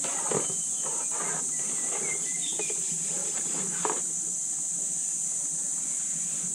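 Steady high-pitched drone of insects, with a couple of light knocks.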